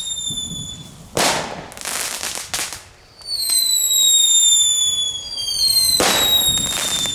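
Several category 1 ground fireworks (knetterkings) going off: sharp bangs about a second in, around two seconds and again near the end, and from about three seconds in several overlapping whistles that fall slowly in pitch.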